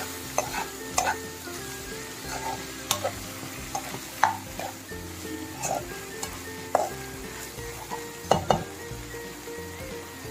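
Spatula stirring lamb tripe and intestines frying with onions in a non-stick kadai: irregular scrapes and knocks against the pan over a steady sizzle, with the sharpest knock a little past eight seconds in.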